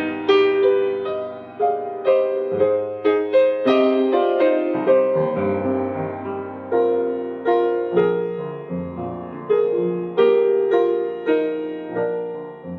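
Background piano music: a slow, gentle melody of struck notes and chords, each note fading after it is played.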